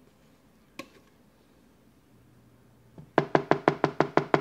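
A silicone spatula knocked against the rim of a mixing bowl to shake off whipped cream: one tap about a second in, then a fast run of taps, about seven or eight a second, from about three seconds in, each with a short ringing tone.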